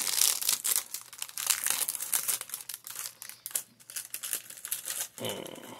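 A foil ration packet of crisp bread crinkling and tearing as it is pulled open and the cracker drawn out. The crackling is densest in the first couple of seconds and thins out towards the end.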